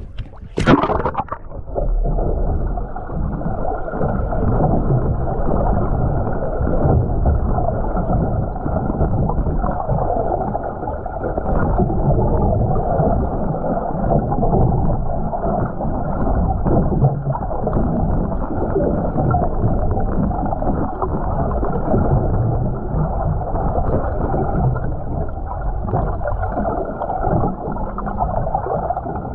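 A GoPro splashing into the sea just under a second in, then the dull, muffled rush and gurgle of seawater heard from under the surface through the camera's waterproof housing as it bobs on its line.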